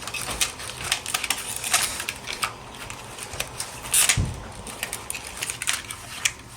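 Product packaging being pulled apart and ripped open by hand, with its securing wires being removed: irregular clicks and crinkles, with a louder rustle and a low thump about four seconds in.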